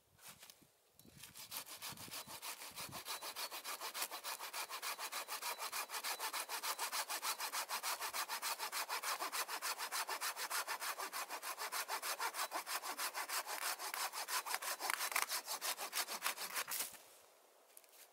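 Small camping hand saw cutting through a thin fallen pine log in quick, even back-and-forth strokes. The sawing starts about a second in and stops shortly before the end.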